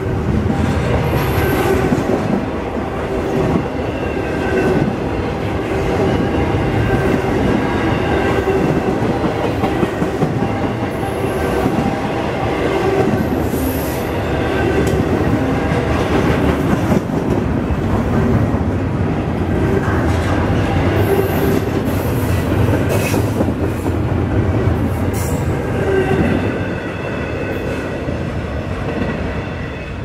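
Double-stack container freight train rolling past at close range: a steady, loud rumble of steel wheels on rail with rhythmic clicking and recurring squeals from the wheels.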